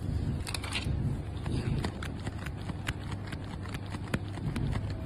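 Handling noise from a foldable phone being held and bent at its hinge: light, irregular clicks and taps, several a second, over a low steady rumble.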